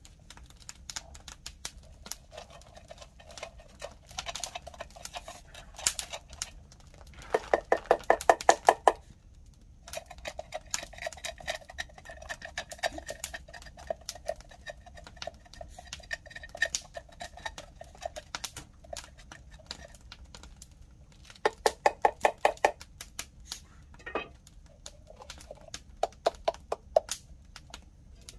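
Large knife peeling and cutting a green papaya held in the hand, heard as short bursts of rapid scraping strokes, with a wood fire crackling.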